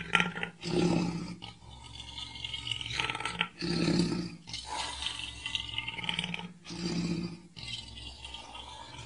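Lion growling, three low growls about three seconds apart with breathy noise between them.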